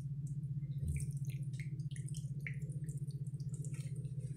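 Water drops flicked from wet fingers onto couscous in a dish: a scatter of small, irregular drips over a steady low hum.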